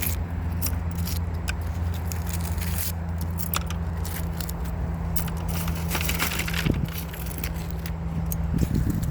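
Nails and small scrap metal being pried off a strong fishing magnet: scattered sharp clicks and crunching scrapes, over a steady low hum.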